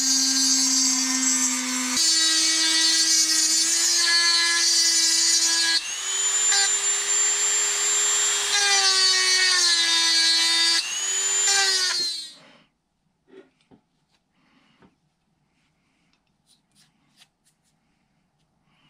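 Dremel rotary tool with a carbide burr grinding out a crack in a metal feed nut bracket to make room for brazing. Its high whine shifts in pitch a few times, then winds down and stops about twelve seconds in, leaving only a few faint clicks of handling.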